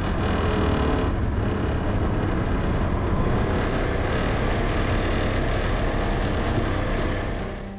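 A Polaris Ranger side-by-side driving along a gravel trail: the engine running steadily, mixed with the noise of the tyres rolling over gravel.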